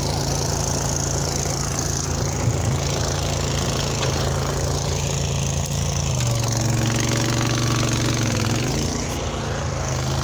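Diesel engine of heavy earthmoving equipment running steadily, its pitch dipping for a couple of seconds partway through as it takes load and then recovering, with a couple of knocks a few seconds in.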